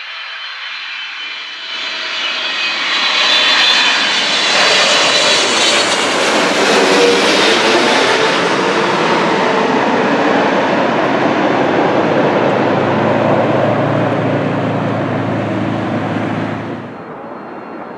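Twin-engine widebody jet airliner on final approach passing low overhead. It rises from a whine to a loud, full jet sound about 4 to 8 seconds in, then settles into a lower rumble before cutting off abruptly near the end.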